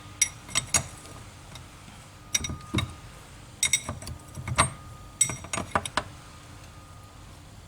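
Light metallic clinks and taps in four short clusters as a spanner is worked on the engine's mechanical fuel injection pump, turning it to line up its timing mark.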